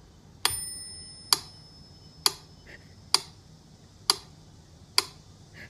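Sharp ticks at an even pace, a little over one a second, six in all; the first is followed by a bell-like ring that fades over about two seconds.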